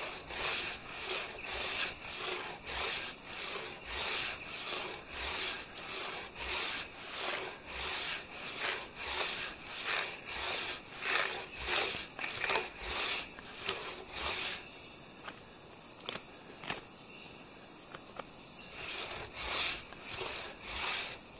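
Hand saw cutting through a maple log, about three rasping strokes every two seconds. The sawing stops for a few seconds, with a couple of faint clicks, then picks up again with four more strokes near the end.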